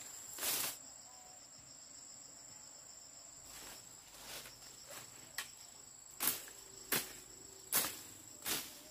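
Crickets keeping up a steady, high-pitched drone, with short sharp scuffs at irregular spacing, most of them in the second half.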